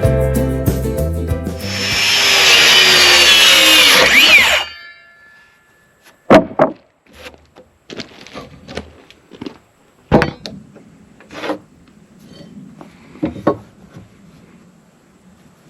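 Background music ends in the first couple of seconds, then a power tool runs under load for about three seconds, with a whine that glides in pitch, and stops suddenly. After it come a dozen or so scattered sharp knocks and clunks at irregular spacing.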